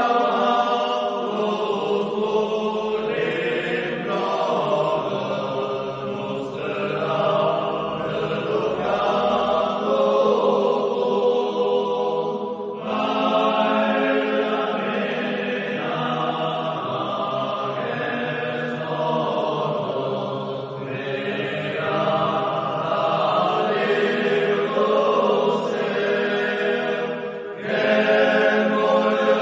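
A cappella men's vocal group singing a Gascon Marian hymn together in a reverberant church. The voices sing in long sustained phrases, with a brief break between phrases every few seconds.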